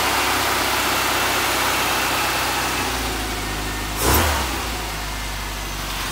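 A classic Mini's A-series engine idling steadily, heard from inside the cabin, with one short louder burst, like a brief blip of the throttle, about four seconds in. No rattle comes from the freshly fitted dash panel.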